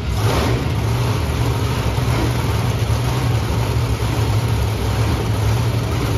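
Monster truck engine running steadily with a deep, even drone, and a brief burst of noise just after the start.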